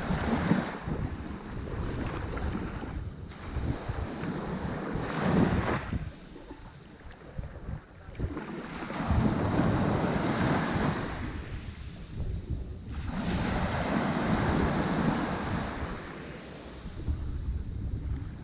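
Ocean waves breaking on a shore, a wash of surf that swells and ebbs in surges a few seconds apart, with a lull of about two seconds near the middle. Wind rumbles on the microphone underneath.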